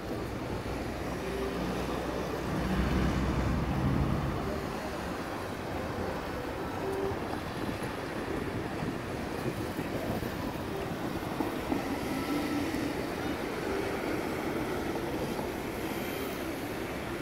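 City street traffic: cars and minibuses driving past, with a louder low rumble as a vehicle passes about two to four seconds in.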